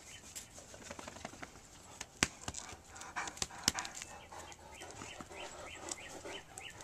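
A large dog moving about, with rustling and a few sharp clicks, while a bird chirps over and over in the background, faster towards the end.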